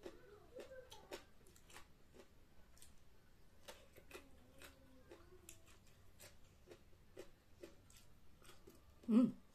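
Close-up eating sounds: wet chewing with frequent small mouth clicks and lip smacks. About nine seconds in comes one short, louder sound from the throat.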